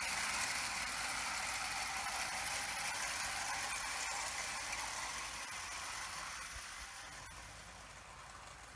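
Bassett-Lowke tinplate O gauge train, a battery-electric LMS 2P locomotive hauling open wagons, running along the garden track with a steady rolling noise and a few faint clicks. It grows fainter over the last few seconds as the train moves away.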